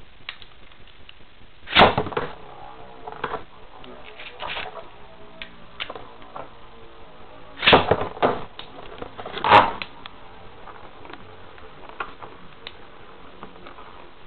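Sharp clacks and knocks of hard objects being handled close to the microphone, a loud cluster about two seconds in and another around eight to ten seconds in, with lighter ticks between them over a faint steady background.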